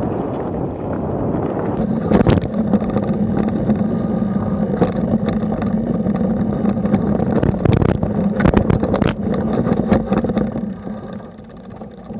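Electric mountain bike riding down a dirt trail: tyres rolling over dirt with rattles and sharp knocks over bumps and a steady low hum, growing quieter near the end.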